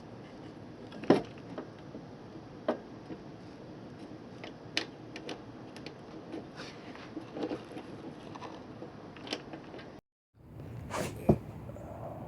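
Scattered clicks and knocks of hands and tools working on a truck side step's metal mounting hardware, the loudest knock about a second in. The sound drops out briefly about ten seconds in, then the handling noises resume with a different background hiss.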